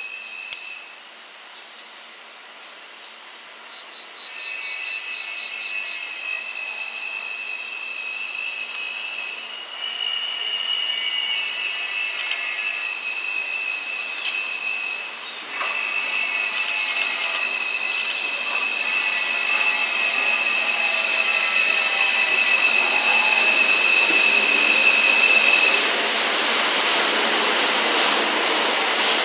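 R160 New York City subway train approaching around a curve and running into the station alongside the platform. Its wheels squeal in several high, steady tones that grow louder as it nears, with a few sharp clicks along the way. Near the end the squeal drops away, leaving the loud rush of the cars passing.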